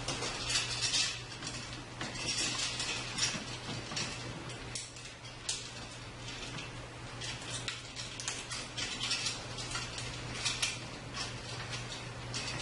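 Bell and Howell Model 2592 16mm sound film projector running, its mechanism clattering and rattling unevenly over a steady low electrical hum.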